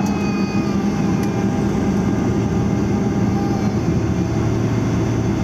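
Cabin noise inside a Boeing 777-300ER on final approach: a steady drone of its GE90 engines and rushing airflow, with a low hum underneath.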